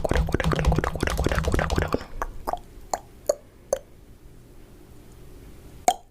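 Close-miked chewing with dense crunchy crackling, thinning after about two seconds into a few sparse wet clicks and plops, then one sharp click near the end.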